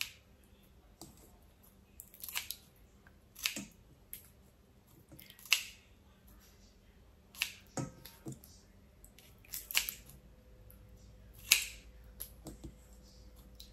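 Kitchen scissors snipping small raw shrimp in short, sharp cuts, one every second or two with quiet gaps between.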